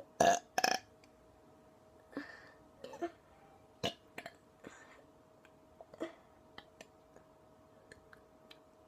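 A person burping: two loud, short burps in quick succession at the start, followed by softer breathy sounds and scattered sharp clicks.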